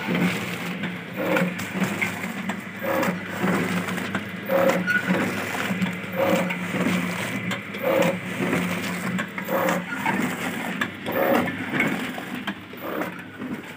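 Naswar sachet packing machine running: a steady motor hum with a mechanical clack repeating about every second and a half as it cycles through the sachets.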